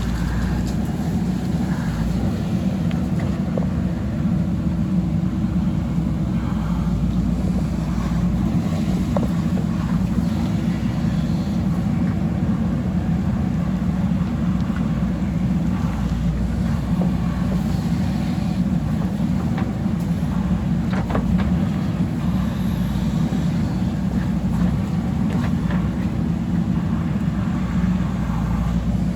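Diesel engine of a JCB backhoe loader running steadily at work, with a few light knocks.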